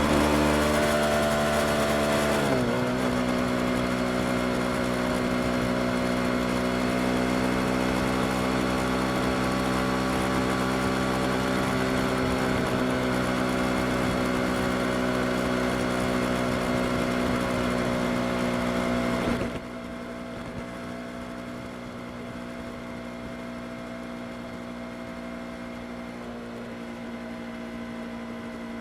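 Yamaha R25's 249 cc parallel-twin engine running steadily under a wind hiss; its pitch drops briefly about two and a half seconds in. About two-thirds of the way through, the wind hiss and the overall level fall away suddenly while the engine runs on more quietly at a steady pitch.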